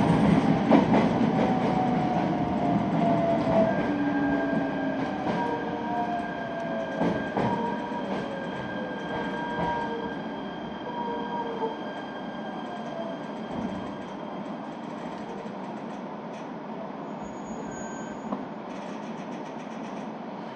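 Local passenger train braking to a stop, heard from inside the carriage. The running noise and rail clatter die away over about a dozen seconds while thin squealing tones from the brakes and wheels slide down in pitch. Once stopped, only a quieter steady hum of the standing train remains.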